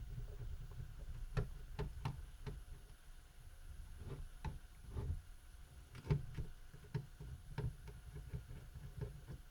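Irregular light clicks and taps of a small screwdriver and fingers on a laptop's plastic and metal parts, as a small screw holding an internal board is undone. A steady low hum sits underneath.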